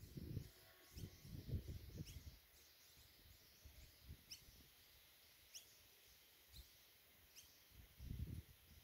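Quiet outdoor scene with a bird giving short, high, rising chirps every second or so. Low rumbles of wind buffet the microphone in the first two seconds and again near the end.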